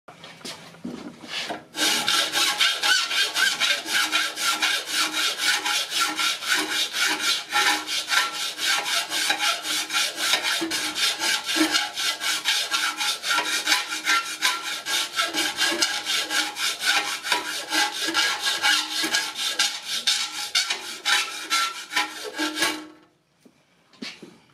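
Hand file scraping back and forth on the edge of a metal front panel clamped in a bench vise, in a steady run of quick strokes. It starts about two seconds in and stops near the end.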